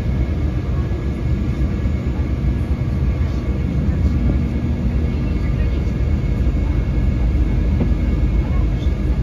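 Steady cabin noise inside an Embraer E195 airliner on approach: a low rumble of engines and airflow, with faint steady whining tones above it.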